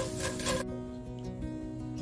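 Wooden spatulas stir-frying small dried anchovies in a pan, stopping abruptly about a third of the way in. Background music plays throughout.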